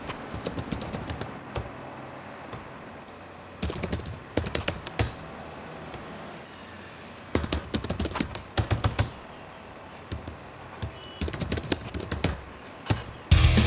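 Four or five bursts of rapid, sharp clicking, like keys being typed, over a faint steady high-pitched whine. Loud music cuts in just before the end.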